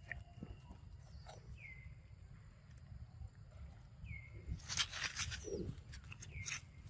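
Monkeys scrambling through dry leaf litter, a burst of rustling and crackling about two-thirds of the way in. A short high call that dips and levels off repeats about every two and a half seconds, over a low rumble.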